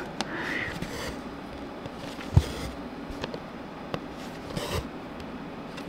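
Cross-stitch needle and thread being worked through stiff fabric held in an embroidery hoop: faint scraping rubs, with a soft knock about two and a half seconds in and a short rasp near the end.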